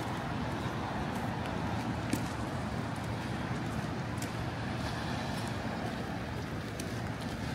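Steady street noise of passing traffic, with a sharp tick about two seconds in.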